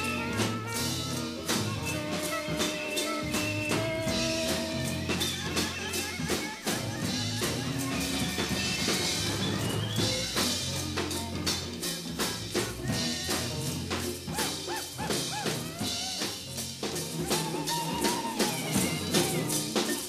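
Recording of a free-jazz ensemble playing: busy drums and percussion strike several times a second under long held notes from the melody instruments, from a cassette dub of a 1974 reel-to-reel studio master.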